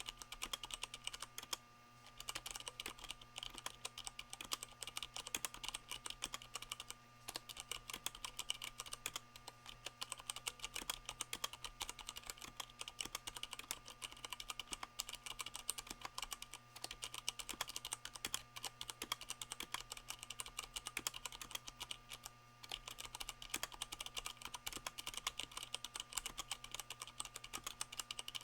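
Continuous fast typing on a mechanical keyboard with Cherry MX Brown switches damped by rubber O-rings, a dense patter of keystrokes broken by a few brief pauses.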